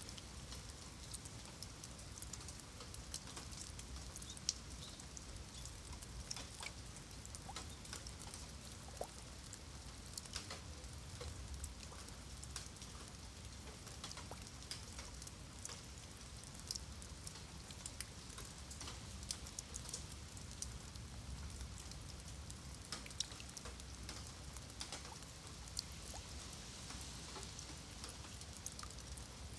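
Rain falling on wet stone paving and shallow puddles: a steady patter made of many separate drop ticks.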